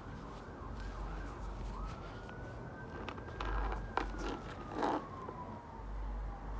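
Emergency vehicle siren wailing: its pitch rises, holds, then falls slowly over several seconds. Close by, fabric rustles, with a few sharp knocks from the garment being handled, the loudest at about four and five seconds in.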